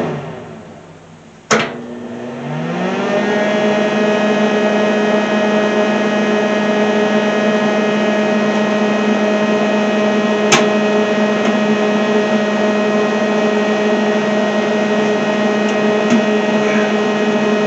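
Lincoln arc welder switched off with a click, its hum dying away. It is clicked back on about a second and a half in and the hum rises in pitch to a steady electrical drone. It runs powered up with no arc struck, with one more click about ten seconds in.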